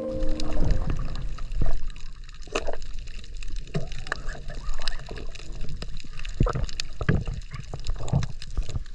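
Underwater sound through a submerged camera: a low rush of moving water with scattered, irregular sharp clicks and crackles.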